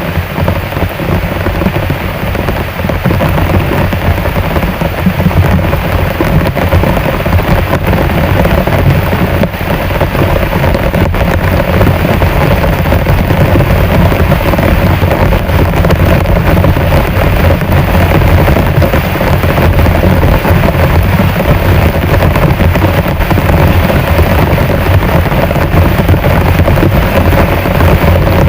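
Heavy rain pouring down steadily, with a deep, even rumble underneath.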